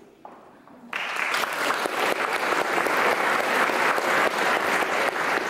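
Audience applauding, the clapping breaking out about a second in and keeping up steadily.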